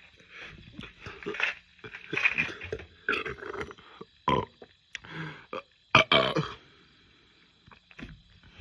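A man straining to burp, his stomach full of carbonated Diet Coke: a run of short throaty belching sounds for about six and a half seconds, with two sharp clicks around four and six seconds in.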